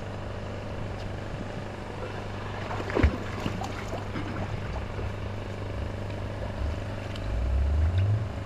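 Steady low mechanical hum of a running motor, with a brief thump about three seconds in and a louder low rumble near the end.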